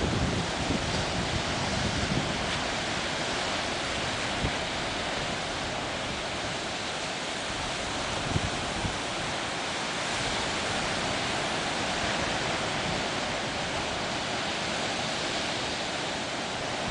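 Atlantic surf washing steadily on the shore, a continuous even rush of sea noise with no single crash standing out, with now and then a short low knock of wind on the microphone.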